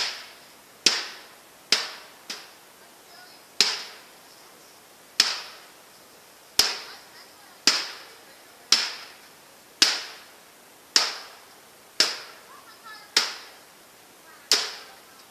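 A microwave oven being smashed with a golf iron: about fourteen hard blows at roughly one a second, each a sharp metallic crack with a short ringing tail.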